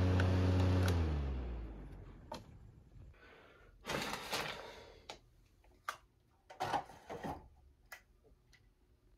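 Desk circulator fan being switched off: its motor hum drops in pitch and fades away over about two seconds as the blades wind down. A few quiet knocks and rustles follow.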